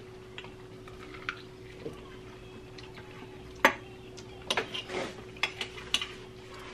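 Metal forks and knives clicking and scraping on plates during a meal, as scattered sharp taps: one sharp click about three and a half seconds in and a cluster of clicks between about four and a half and six seconds. A faint steady hum sits underneath.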